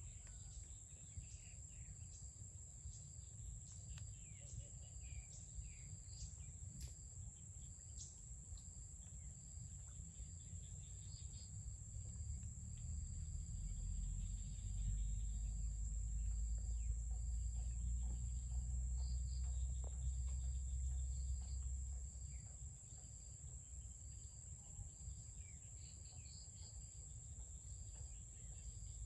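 Insects trilling outdoors: one steady high-pitched trill that never lets up, with a second, pulsing call repeating about once a second. A low rumble swells in the middle and fades again.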